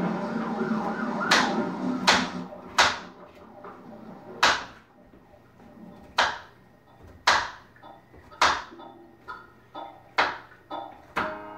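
A knife chopping on a cutting board: sharp knocks about once a second, unevenly spaced. For the first two seconds they sound over a steady droning tone, which then stops.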